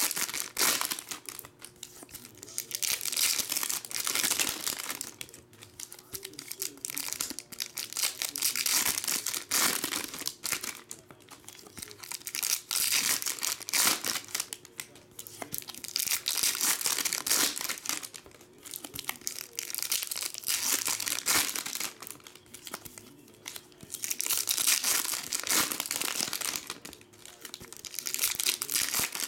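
Foil trading-card packs being torn open and their wrappers crinkled by hand, in repeated crackling bursts every couple of seconds.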